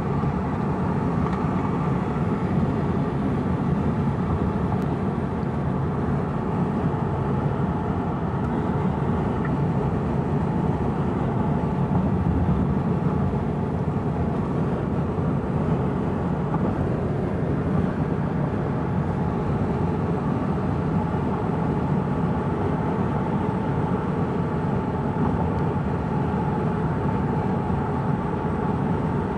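Steady road and engine noise from a moving vehicle, even throughout, with a faint steady hum on top.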